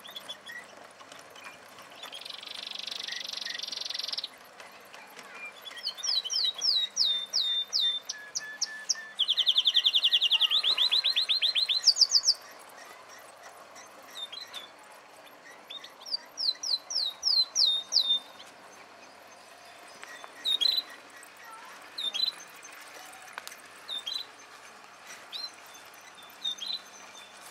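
Songbirds singing: phrases of quick, high, falling notes and a fast rattling trill, then single short chirps about once a second through the second half.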